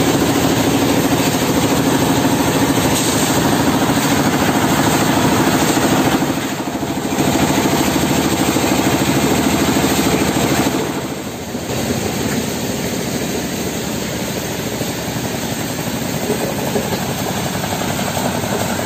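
Stone-crushing plant running: a jaw crusher and its rotating wire-mesh trommel screen make a steady, loud mechanical din with a hum underneath. The noise dips briefly about six and eleven seconds in and is a little quieter after that.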